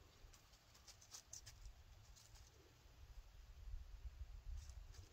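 Near silence: faint outdoor ambience with a low rumble and a few soft ticks, about a second in and near the end.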